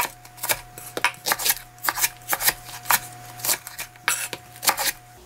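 Kitchen knife slicing thick green onions lengthwise into long strips on a wooden cutting board: a quick, uneven series of knocks of the blade on the board, about three a second.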